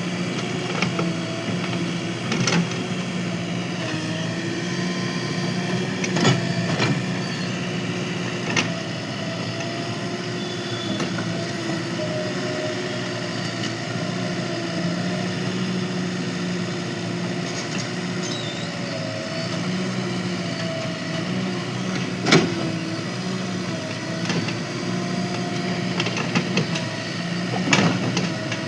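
JCB 3DX backhoe loader's diesel engine running steadily while digging, its pitch dipping slightly now and then under load. Sharp knocks sound several times, the loudest about two-thirds of the way through.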